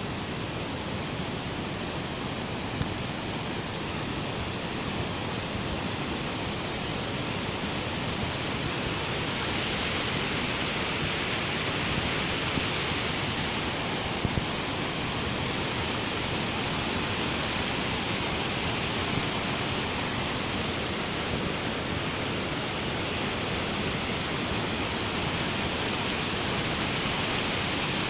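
Waterfall: a steady rush of falling water, growing a little louder about nine seconds in.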